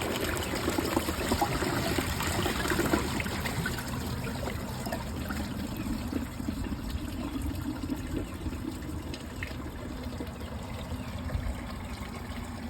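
2005 Crane Plumbing toilet flushing with a grocery bag and washcloth in the bowl. Water rushes at first, then settles into a steadily fading running and trickling as the bowl fails to clear: it clogs.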